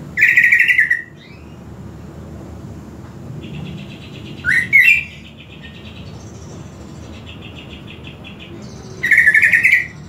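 A greater green leafbird (cucak ijo) calling loudly in three short rapid bursts, one at the start, one about halfway and one near the end. Fainter fast buzzing trills sound in between.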